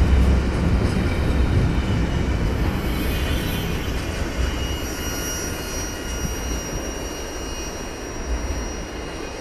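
Double-stack container train's cars rolling past, the low wheel-on-rail rumble fading steadily as the end of the train goes by. A thin, high wheel squeal sounds for a few seconds in the middle.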